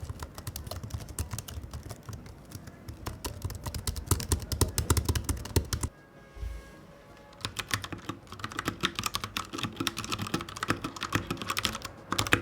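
Fast typing on a Royal Kludge 61 mechanical keyboard with brown switches and on a MacBook's low-profile keyboard, one after the other, with a short break about six seconds in. The first stretch has a deeper clack; the second is a thinner, higher clatter.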